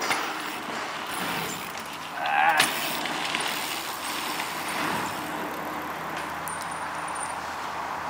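Mountain bikes riding a dirt-jump track: tyres rolling on packed dirt over a steady hiss, with distant voices. A brief, louder wavering sound comes about two and a half seconds in.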